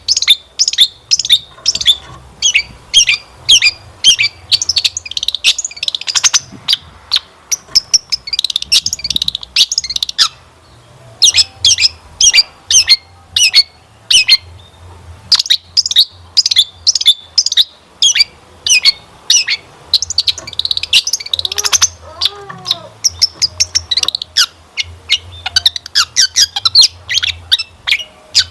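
Long-tailed shrike singing a fast, loud run of sharp high chips and trills, packed with mimicked phrases, broken by a couple of brief pauses.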